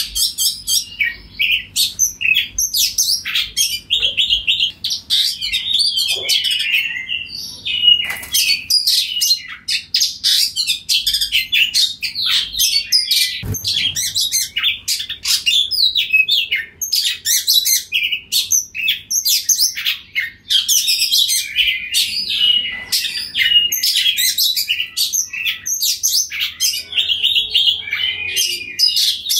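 Oriental magpie-robin (kacer) singing loudly without pause: a rapid, varied run of clear whistles and chattering notes.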